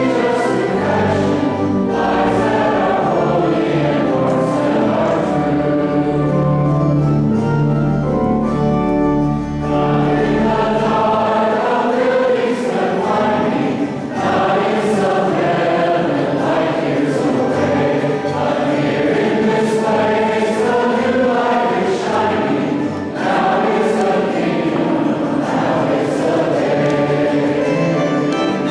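Church choir singing a hymn with organ accompaniment; the low sustained bass notes drop out about ten seconds in.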